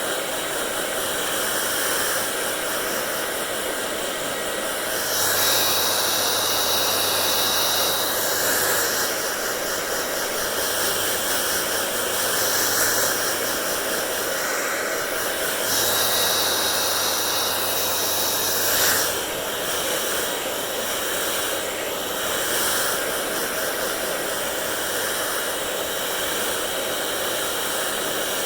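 Hair dryer blowing steadily, a continuous rushing hiss. It grows louder and hissier twice for a few seconds.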